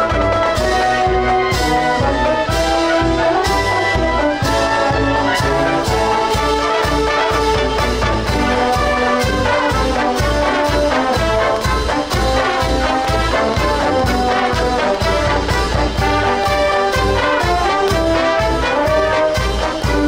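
School marching band playing a tune on saxophones, trumpets, trombones and sousaphone over a steady beat of about two strokes a second.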